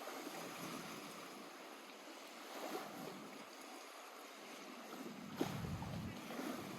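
Small lake waves lapping and splashing at the water's edge, with a sharper splash and a brief low rumble of wind on the microphone about five seconds in.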